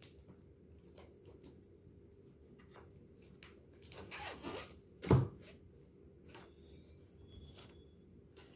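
Ballpoint pen writing on a paper form on a wooden table: faint scratching and small taps, with one sharp knock a little past the middle.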